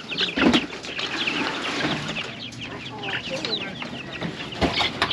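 A crowd of chickens clucking and chirping together, many short high calls overlapping without a break. There is a low thump about half a second in and another near the end.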